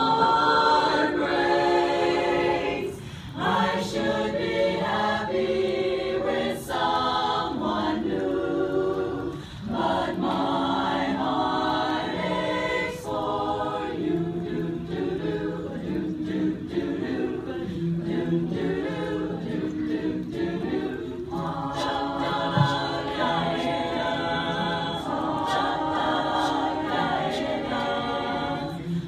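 A choir singing a cappella, with short breaks between phrases.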